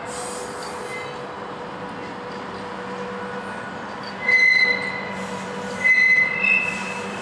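Freight train hauled by two VR Sr2 electric locomotives rolling past, with steady running noise and a constant hum. Twice, about four and six seconds in, high-pitched wheel squeals rise sharply over the running noise.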